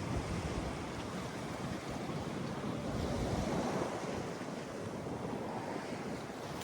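Sea waves breaking and washing on a beach, a steady rushing surf that swells a little around the middle, with wind buffeting the microphone.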